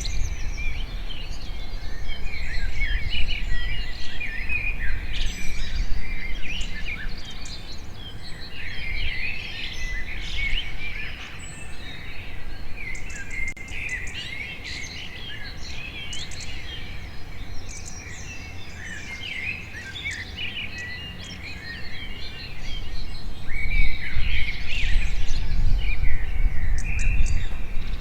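Songbirds chirping and twittering in a busy, overlapping chorus of many short high calls and trills, growing louder near the end, over a steady low rumble.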